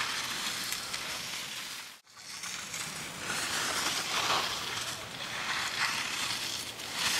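Alpine skis carving giant-slalom turns on hard snow: a scraping hiss that swells with each turn and grows louder as the skier comes closer. The sound cuts out briefly about two seconds in.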